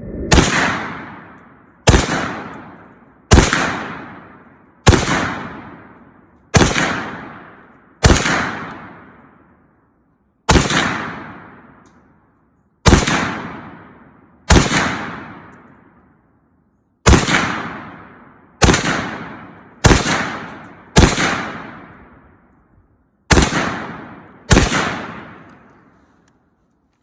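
AR-pattern semi-automatic rifle fired in slow aimed shots, about fifteen in all, spaced one to two and a half seconds apart, each crack trailing off in a long echo.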